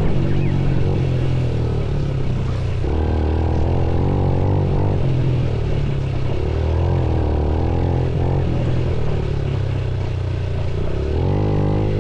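Motorcycle engine running under changing throttle while riding, its pitch rising and falling, with surges about three seconds in, around six and a half seconds and again near the end.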